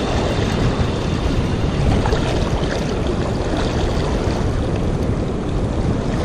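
Fast, shallow river current rushing and splashing around a wader, a steady roar of moving water with a heavy low rumble.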